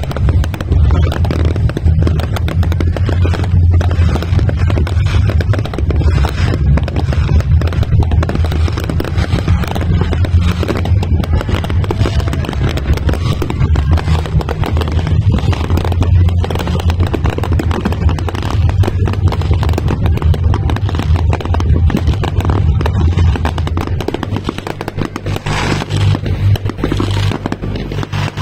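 Fireworks bursting in rapid succession over a continuous deep rumble, thinning out near the end.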